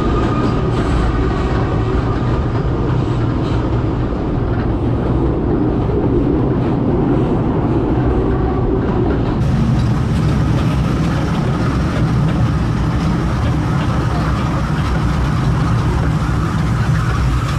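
Running noise of a narrow-gauge trolley train heard from on board an open-sided passenger car: a steady rumble with the rattle of wheels on rails. A faint squeal fades early on. About halfway through the sound turns brighter and hissier.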